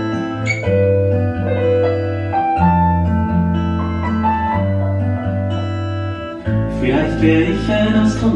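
A slow ballad played back on a Sonos soundbar: sustained keyboard chords over a steady bass with a piano melody, and a voice coming in near the end.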